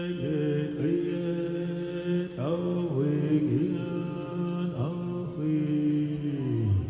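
Soundtrack chanting: voices holding long notes together, sliding up into new notes a few times, with the lowest note falling away near the end.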